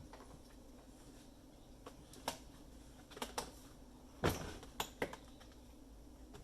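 Handling of parts on a De'Longhi espresso machine being taken apart: about six sharp clicks and knocks, the loudest about four seconds in, over a faint steady hum.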